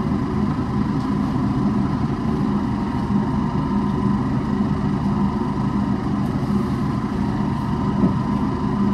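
Steady mechanical drone of a running motor, with a constant low hum and a thin high whine above it.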